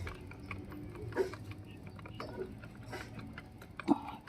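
Scattered light clicks and small knocks of a stiff plastic relay being worked loose and pulled from a car's fuse box, with a sharper knock just before the end.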